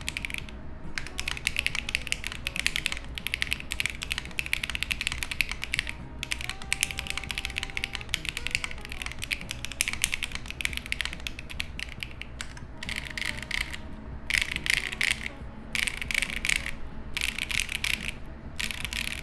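Typing on a Monsgeek M1 V3 mechanical keyboard fitted with Akko x HMX Stellar linear switches with PA12 housings: rapid key presses bottoming out in a dense stream of clacks. In the second half the typing breaks into separate bursts with short pauses.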